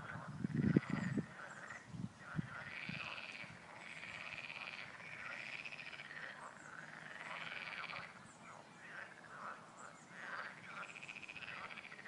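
A chorus of frogs calling, many croaks overlapping, with a higher trilling call that comes back about every two to three seconds. A few loud, deep sounds stand out in the first two and a half seconds.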